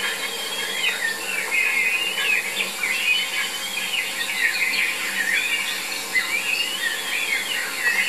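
Many small birds singing at once: a continuous chorus of overlapping warbling and chirping phrases.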